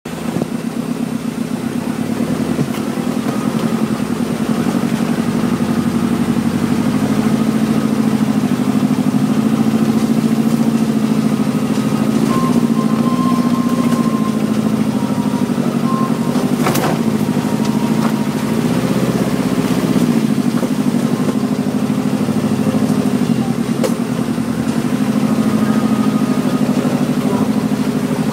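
4x4 off-road vehicle engine running steadily under load, its revs rising and falling.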